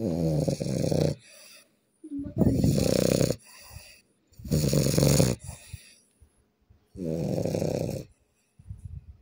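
A sleeping person snoring loudly: four snores about two seconds apart, each about a second long, the first three trailing off into a softer tail.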